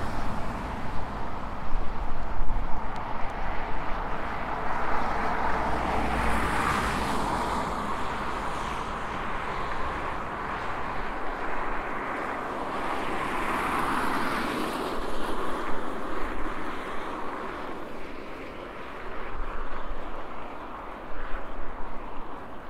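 Road traffic passing: a steady hum of vehicles, with two of them swelling up and fading away, about six and fourteen seconds in.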